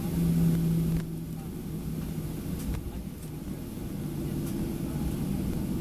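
Steady low hum inside a Boeing 737-800's cabin while it is on the ground. A steady tone is heard over the hum, which fades out about two and a half seconds in.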